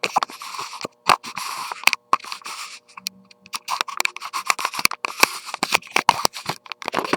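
Camera handling noise: irregular clicks, taps and scraping rustles as the camera is fumbled with and its zoom adjusted, over a faint steady hum.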